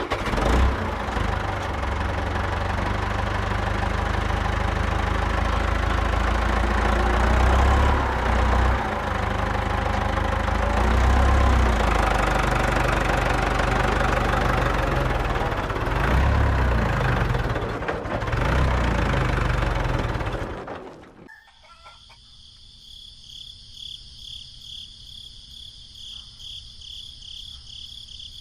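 Mini tractor's small engine running with a heavy low rumble, its level rising and falling a little, then stopping abruptly about 21 seconds in. Crickets chirp steadily afterwards.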